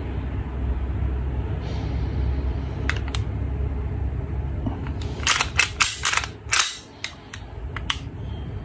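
Sharp plastic-and-metal clicks and clacks from a WE G17 Gen5 gas blowback airsoft pistol being handled, a few at first, then a quick cluster about five to six seconds in, over a low steady hum.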